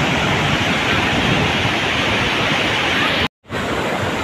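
River water rushing over rock ledges in rapids: a steady, loud rush of white water. It breaks off for a moment about three seconds in and then carries on a little quieter.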